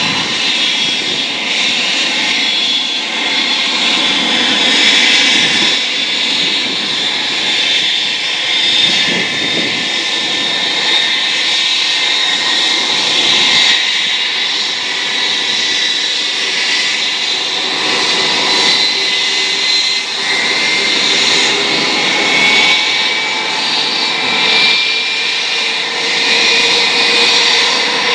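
Airbus airliner's jet engines running on the ground with a steady high whine, starting up after startup clearance. Over the last several seconds a whine climbs slowly in pitch as an engine spools up.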